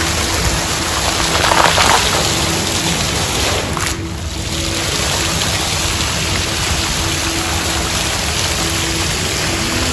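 Dancing fountain jets splashing steadily into the pool, with music playing faintly beneath. The splashing dips briefly about four seconds in.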